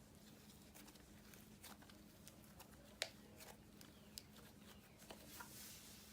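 Near silence with faint scattered clicks and pops, one sharper click about three seconds in: slime being squished and pulled by hand.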